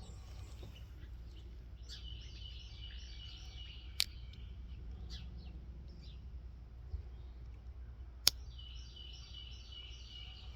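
Two sharp clicks about four seconds apart: a slip joint knife's Damascus blade snapping open and shut against its back spring. Birds chirp in quick repeated runs in the background.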